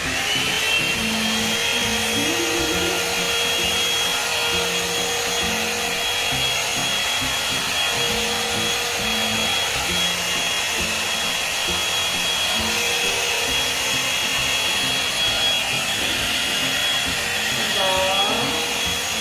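Hot-air brush hair dryer/volumizer running steadily on its low setting: a constant rush of air with a thin, high motor whine, described as strong ("ang lakas").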